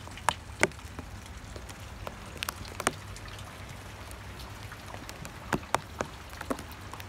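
Rain falling with a steady hiss, and irregular sharp drips of water hitting hard surfaces close by, a few a second at most.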